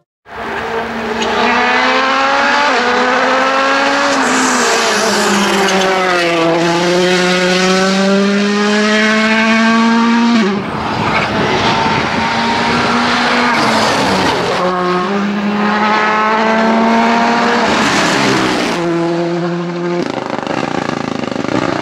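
Rally cars driven flat out one after another, engines revving hard. The pitch climbs through each gear and drops at every shift and under braking, with abrupt changes from one car to the next.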